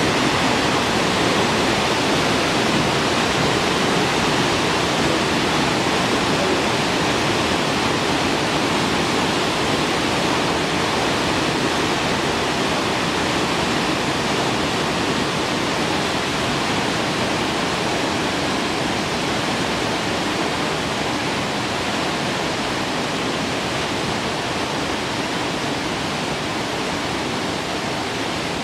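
Steady, loud rush of water from a tall three-tiered waterfall, about 88 m high, plunging without a break.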